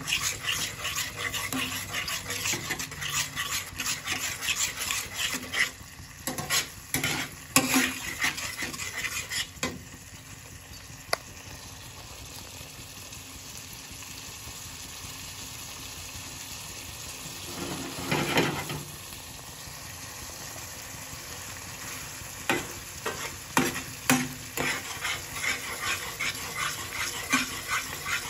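A flat metal spatula stirring and scraping thick onion gravy in a frying pan while the gravy sizzles and bubbles. The scraping stops for a stretch in the middle, leaving the steady sizzle, and there is one short louder noise in that stretch.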